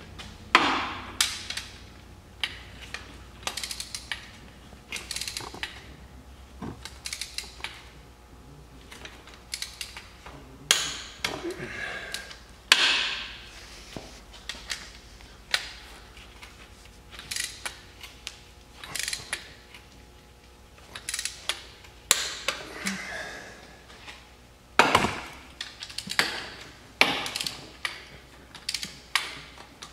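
Ratchet wrench clicking in repeated short runs as the cylinder head bolts of a Polaris Sportsman 500 engine are tightened and loosened in a torque sequence.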